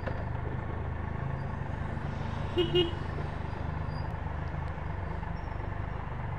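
Triumph Trophy 1200SE's three-cylinder engine running steadily, with two short horn toots about two and a half seconds in.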